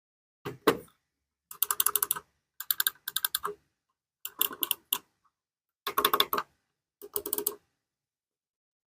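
Buttons of a One Max OM-GW5 wireless gaming mouse being clicked in quick runs, about six short bursts of sharp clicks with pauses between them. The demonstration shows that the main buttons are silent while the extra buttons click audibly.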